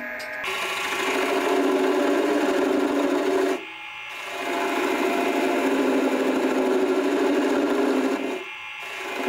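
Wood lathe spinning a figured maple bowl blank while a hand-held turning tool cuts the foot: a steady cutting hiss over the running lathe. The sound drops away briefly twice, about 4 and 8.5 seconds in, before the cut picks up again.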